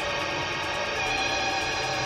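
Ambient electronic music: a dense bed of held, sustained tones with no beat, the chord shifting to new notes about a second in.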